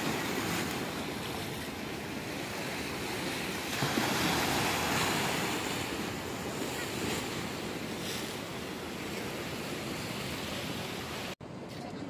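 Sea waves breaking and washing over rocks along the shore, swelling louder about four seconds in. Near the end the sound cuts off abruptly and returns quieter.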